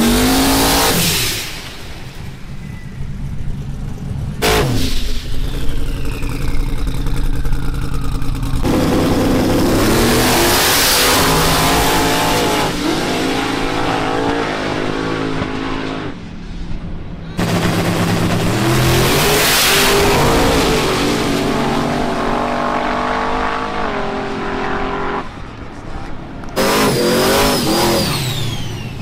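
Drag-racing vehicles launching and accelerating hard, engines revving up in pitch and dropping back at each gear change, in several short passes that cut suddenly from one to the next.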